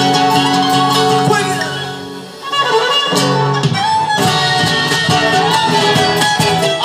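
Instrumental passage of Latin American band music with sustained melody tones over plucked strings. The music dips briefly about two seconds in, then the band comes back in at full level.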